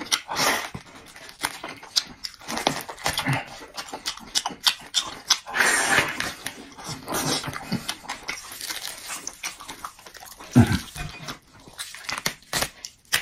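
Close-miked chewing and gnawing of meat on the bone, with wet smacking and many short tearing clicks throughout.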